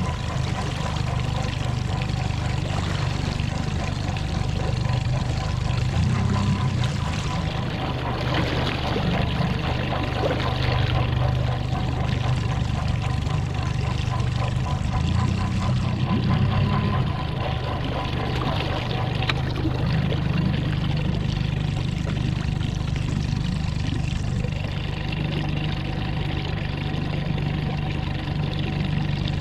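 2020 Mercury 50 hp four-stroke EFI outboard motor running steadily, with water splashing and rushing and a thin steady whine over the low engine note. The motor is one its owner says has started making a weird noise when in gear.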